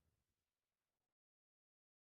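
Near silence: a gap with no sound, the last inaudible trace of the previous whoosh effect dying away in the first second.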